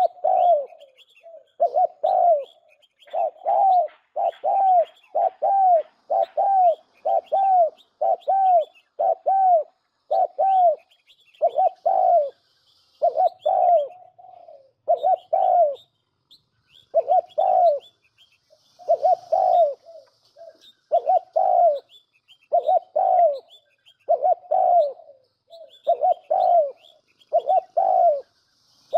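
Spotted dove lure call: low coos repeated about once a second, a decoy recording for a bird-trap loudspeaker, with faint high chirping in the background.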